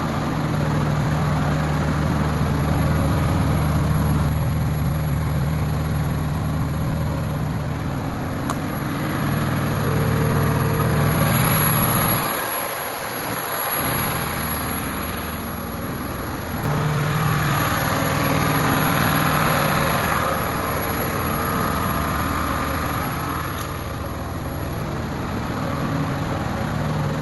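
Cummins diesel engine of a 350 kVA generator set running at a steady speed, a continuous low hum whose low end drops away briefly about halfway through.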